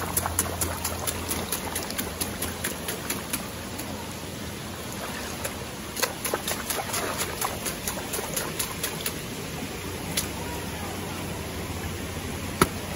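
River water splashing and trickling, with runs of small sharp clicks and knocks like stones moving against each other, thickest in the first few seconds and again from about five to nine seconds in.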